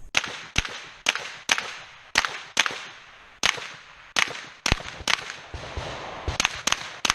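A rapid string of rifle shots, roughly two a second, each a sharp crack with a short echo, with a brief pause just before the middle as the shooter moves between targets.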